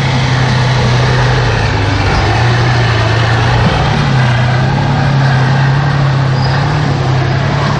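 Tank engine running loudly, a steady low drone whose pitch wavers slightly.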